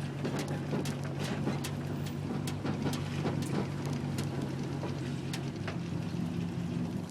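Four-wheel-drive vehicle driving on a dirt track: a steady low engine hum with frequent sharp clicks and rattles.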